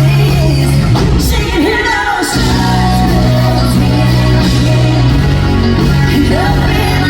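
Loud country band music with drums and bass, and a woman singing over it.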